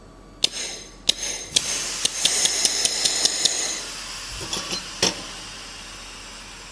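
Pulse laser welder firing on thin sheet metal: sharp snapping cracks, a few single pulses, then a quick run of about five a second over a hiss, then two more near the end.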